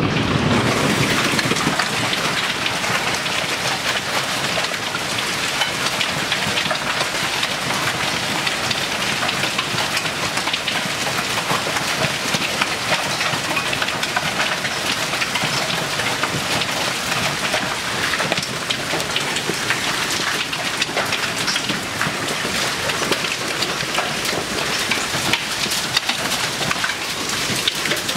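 Heavy hail pelting down: a dense, steady clatter of countless small impacts at the storm's peak.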